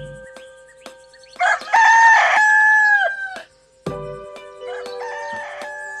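Rooster crowing: one loud crow of about two seconds ending in a long held note that drops away, then a second, quieter crow near the end. Short soft thumps come at the start and just before the second crow.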